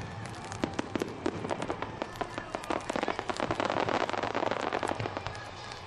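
Fireworks crackling: a dense, irregular run of small sharp pops and cracks from the scattered sparks of burst shells, with no big boom among them.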